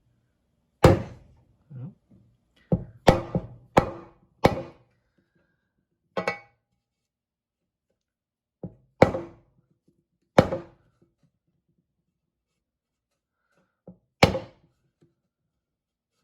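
A mallet knocking on a large socket held against a new crankshaft seal, driving the seal into the engine's timing cover. About a dozen sharp knocks, each with a brief ring, come singly or in quick pairs with pauses between.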